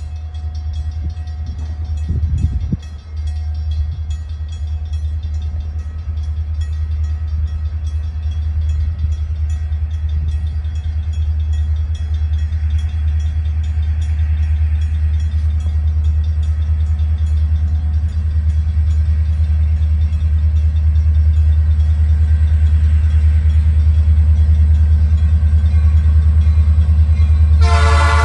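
Diesel locomotive approaching on a freight train: a steady low engine rumble that grows gradually louder, and the air horn starting to sound near the end.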